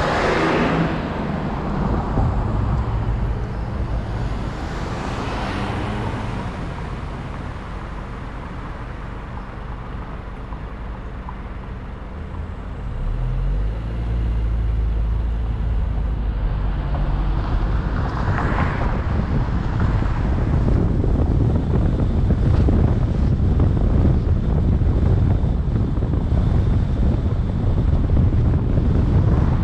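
Car driving on city streets: a steady low rumble of road and tyre noise with wind buffeting the microphone. Passing vehicles swish by near the start, around five seconds in and again around eighteen seconds in. The noise drops for a few seconds, then grows louder from about thirteen seconds in as the car picks up speed.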